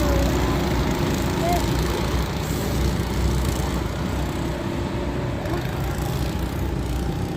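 Go-kart engines running on a track: a steady low drone with no sharp changes.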